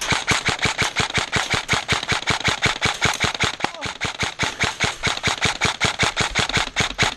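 Airsoft gun firing a long, steady string of shots at about eight to nine a second, each a sharp snap.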